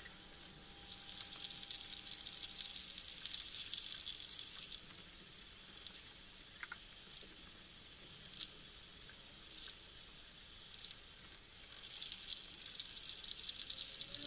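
Candle wax melting and bubbling in a steel bowl on an induction cooktop, sizzling and crackling with scattered sharp pops. The hiss is strongest in two stretches, one near the start and one near the end.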